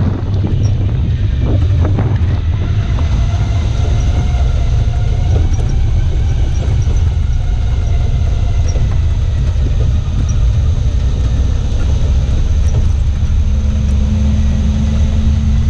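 Off-road vehicle running steadily with a loud, low rumble, with a faint steady hum joining near the end.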